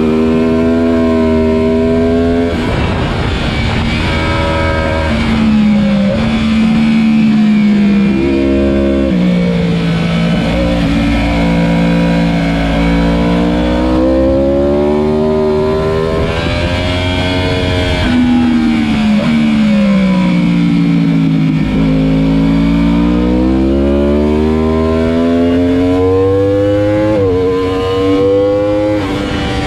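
Sport motorcycle engine at track speed, its pitch climbing under acceleration and dropping sharply at each gear change. Partway through it falls away as the bike slows for a corner, then climbs again on the drive out, with steady wind rush underneath.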